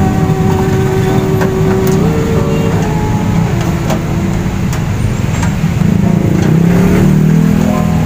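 Background music: a sustained melody line stepping and sliding between held notes over a heavy, dense low rumble.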